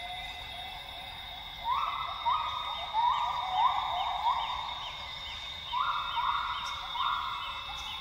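Northern grey gibbons (Hylobates funereus) singing: a run of rising whoops at about two a second, starting about two seconds in, a short pause, then three more near the end. Steady high-pitched tones carry on underneath.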